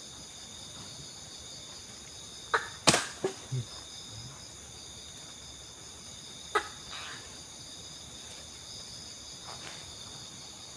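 Forest insects, such as crickets, droning steadily in several high-pitched bands, with a few sharp knocks or clicks, the loudest just under three seconds in and another about six and a half seconds in.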